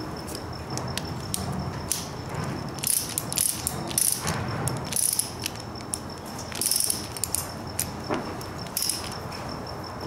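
Ratcheting wrench clicking in short, irregular runs, with metal clinks from locking pliers, as a clutch lever's pivot screw and nut are tightened.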